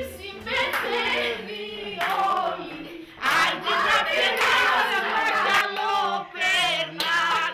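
A small group of people singing together, with women's voices leading. The singing pauses briefly about three seconds in and then resumes.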